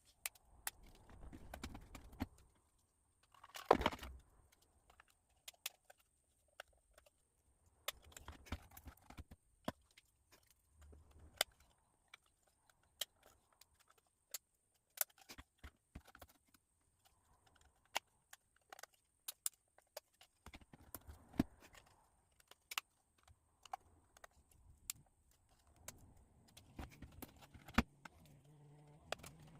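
Thin plywood planks clicking and tapping as they are pushed one by one into the slots of a plywood barrel end, with scattered sharp clicks and brief rustles of handling between them.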